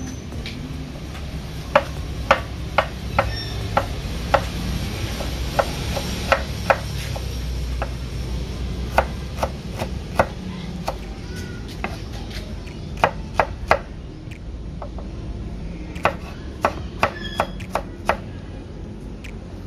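Kitchen knife slicing shallots on a wooden cutting board: sharp knocks of the blade against the board, coming in short runs with pauses between.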